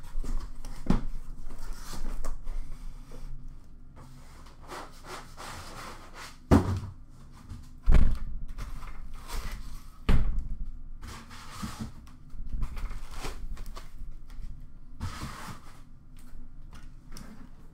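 Cardboard boxes being handled and set down on a counter: rustling and scraping, with three loud thumps in the middle.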